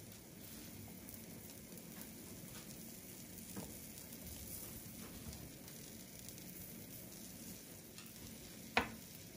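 Egg omelette sizzling gently in a nonstick frying pan on a gas hob, with one sharp click near the end.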